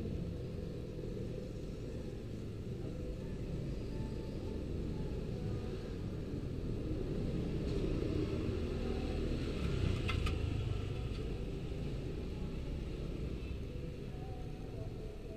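Low, steady outdoor rumble of background noise, with a couple of faint clicks about eight and ten seconds in.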